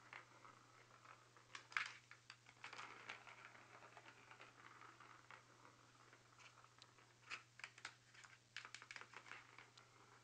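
Kittens batting a ball around a plastic circular track toy, the Catit Senses Play Circuit: irregular light clicks and rattles of paws on the plastic and the ball rolling in the track, with sharper knocks about two seconds in and again about seven seconds in.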